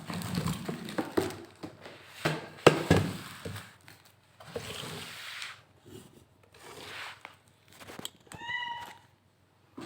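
Cardboard box and packaging being handled and opened: irregular thunks, clicks and rubbing rustles, busiest in the first few seconds, with a brief high-pitched call near the end.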